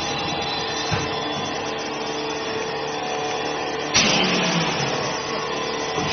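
Vacuum mask packaging machine running with a steady mechanical hum. A small click comes about a second in, and a sudden louder rush about four seconds in fades over the next second.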